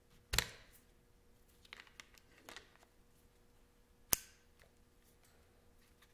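Sharp plastic clicks and snaps as a phone is pressed and fitted into a Yellow Jacket stun-gun phone case: one loud snap about half a second in, a few faint clicks around two seconds, and another sharp snap about four seconds in.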